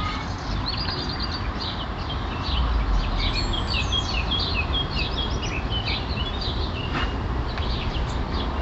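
Wild birds chirping and singing, many short chirps, over a steady low rumble that swells a little about two and a half seconds in.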